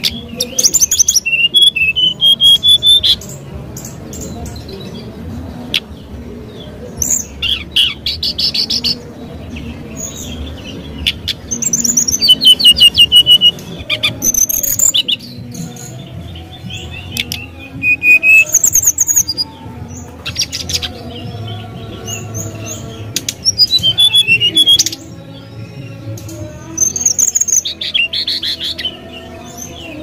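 Brown-chested jungle flycatcher singing: short, clear whistled phrases of one to two seconds, some rising in pitch, repeated every few seconds over a low steady background hum.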